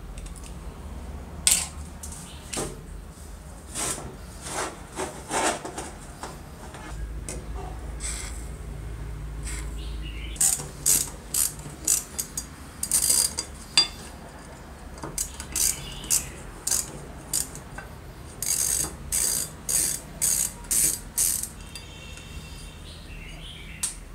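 Hand tools, pliers and a screwdriver, clicking and scraping against the metal switch box and wiring fittings of an old drill motor while it is taken apart. Scattered sharp clicks, then quick runs of clicks about ten seconds in and again near the end.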